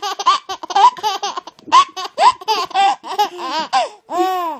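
A one-year-old baby laughing hysterically: a rapid run of short, high-pitched giggles, with a longer drawn-out laugh near the end.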